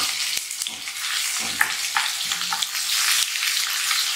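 Ginger-garlic paste sizzling in hot ghee in a karahi, with a steady frying hiss, while a wooden spoon stirs it and knocks and scrapes against the pan now and then.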